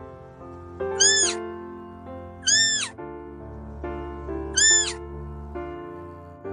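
A cat meowing three times, short high-pitched meows that each rise and fall in pitch, over background music.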